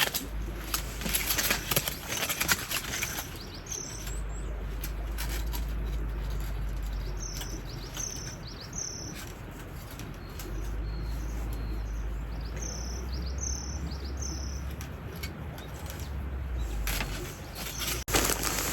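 A small bird singing short phrases of about three quick high chirps, repeated several times, over the steady rush of a stream. Scattered clicks and rustles near the start and the end.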